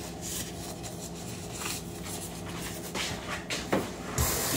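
A faint steady hum with a few light knocks and clicks, then a kitchen tap is turned on about four seconds in and runs with a steady rush of water near the end.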